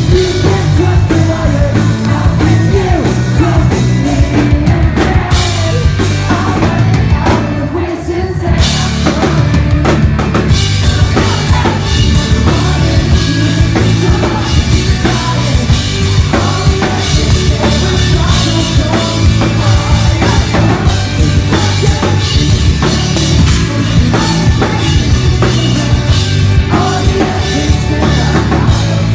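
Pop-punk band playing live and loud: drum kit, bass and electric guitars. About five seconds in the cymbals drop away for a few seconds, and the full kit comes back about ten seconds in.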